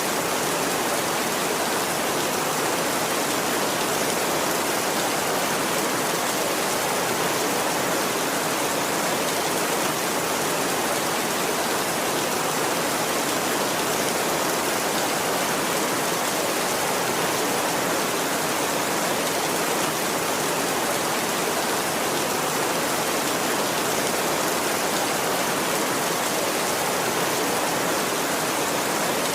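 Heavy rain falling steadily on a tin roof, an even hiss with no thunder.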